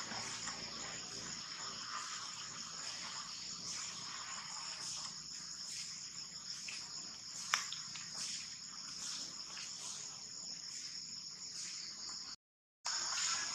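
Steady high-pitched chorus of insects in the grass, with a single short click about seven and a half seconds in. The sound cuts out briefly near the end.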